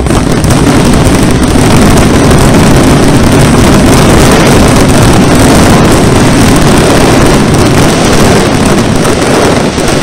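Grucci aerial fireworks finale barrage: many shells and crackling effects bursting so densely that the reports merge into one continuous loud noise without separate bangs.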